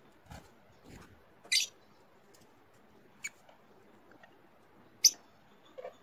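Peach-faced lovebirds giving a few short, shrill chirps, the loudest about a second and a half in and again near the end, with soft knocks and scuffles between.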